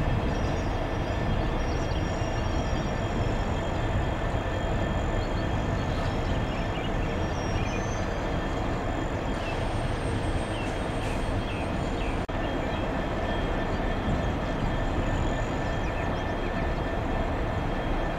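Diesel locomotives idling in a rail yard: a steady low rumble and hum with a thin steady whine above it.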